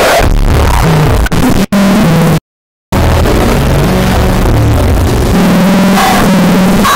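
Loud, heavily distorted, music-like effects audio: a dense wash of sound over low tones that step up and down. It cuts out completely for about half a second a little over two seconds in, then carries on.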